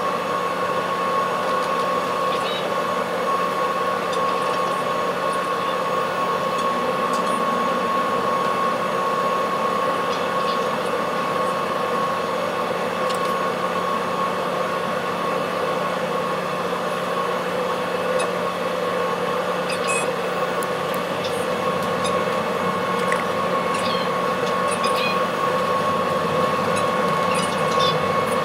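Car ferry's machinery droning steadily, with a constant high whine over the low hum and a few faint ticks.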